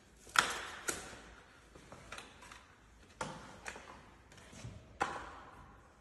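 Bicycle parts being handled during assembly: irregular sharp metallic clicks and knocks, each with a short ring, the loudest about half a second in and another strong one about five seconds in.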